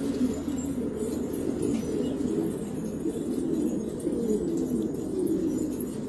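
Domestic pigeons cooing, low coos overlapping without a break.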